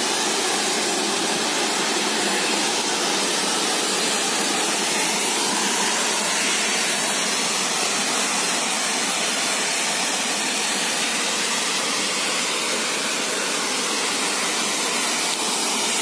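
Steady rushing hiss of the high-pressure water jet from a FOREDE PSKDY remote-control fire water monitor's nozzle, spraying continuously.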